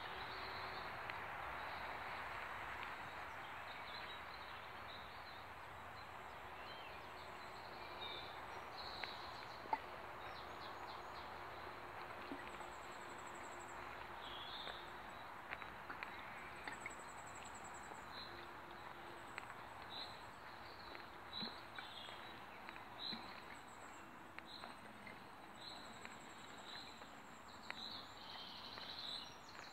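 Small birds calling and singing over a faint steady outdoor hiss; in the second half one bird repeats a short high chirp about once a second.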